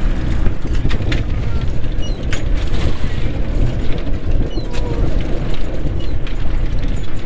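Fishing boat's engine running under a steady rumble of wind on the microphone, with scattered sharp clanks and knocks as a crab ring pot is worked at the rail.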